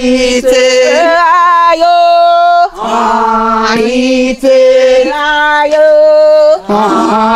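A woman singing slow, long-held notes without accompaniment, in phrases a couple of seconds long with short breaks between them.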